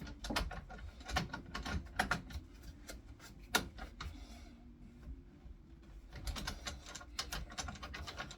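Irregular clicks and knocks of clamps and wooden parts being handled and set in place, with one sharper knock about three and a half seconds in and quicker clicking near the end.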